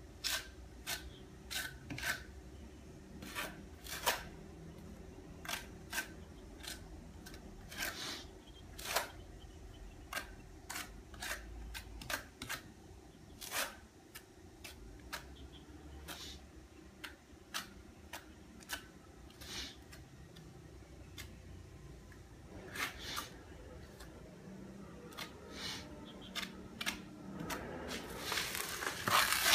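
Steel notched trowel scraping and tapping as it spreads tile mortar on the concrete floor: a string of short, sharp scrapes, one or two a second, growing denser and louder near the end as more mortar is worked.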